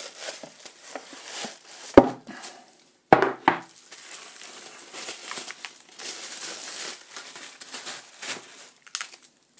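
Paper wrapping crinkling and rustling as it is worked off a heavy metal keyboard case. Two sharp knocks come about two and three seconds in.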